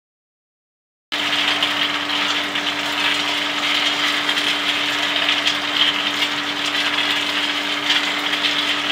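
Silence for about the first second, then cashews rattling steadily as they tumble in a rotating stainless steel coating pan during chilli coating, over a steady motor hum from the machine.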